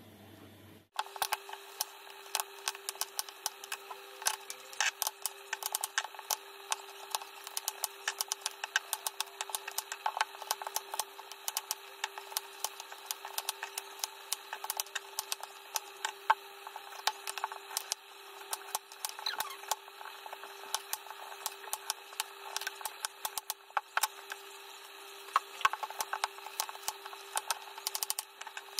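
Chef's knife chopping butternut squash on a wooden chopping board: quick, irregular knife strikes on the board, several a second, over a steady low hum.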